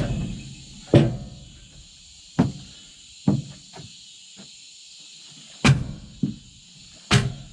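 About seven sharp knocks and clanks at uneven intervals, the loudest about a second in and two near the end, from a log being handled and set on a portable sawmill's bed. A low engine rumble fades out at the start.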